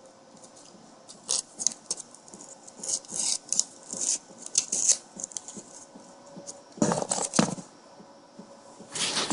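Keyboard packaging being handled and pulled apart: short scattered rustles and clicks, with a louder clatter about seven seconds in.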